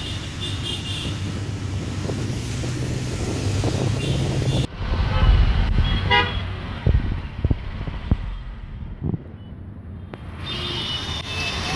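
Street traffic: a steady engine hum with bursts of short, repeated vehicle-horn beeps near the start, in the middle and again near the end. A few sharp thumps come in the middle.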